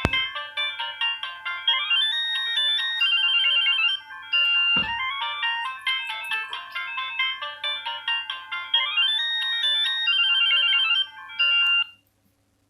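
Samsung SGH-X460 mobile phone ringtone: a synthesized melody of quick, stepped electronic notes, several sounding at once, with almost no bass. It cuts off abruptly near the end.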